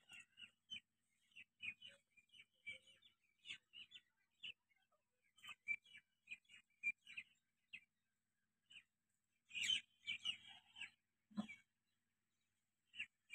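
Small birds chirping faintly in many short, rapid calls, with a denser flurry of chirps near the end.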